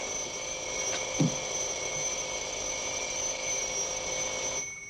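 An electric doorbell ringing without a break, held down for several seconds, then cut off suddenly near the end.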